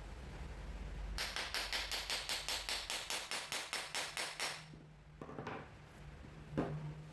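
A fast, even run of rasping strokes, about five a second, as a hand tool works wood; it stops, and a single knock follows near the end.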